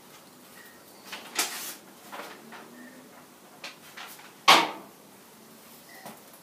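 Handling noises: a short scrape a little over a second in, a few light clicks, and a sharper knock past the middle, the loudest sound.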